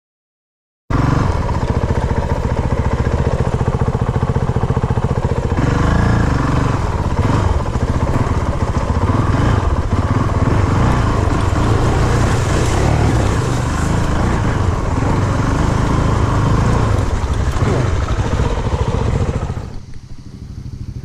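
Motorcycle engine running loudly and steadily under way, then dropping to a quieter idle about nineteen seconds in. The sound begins abruptly about a second in.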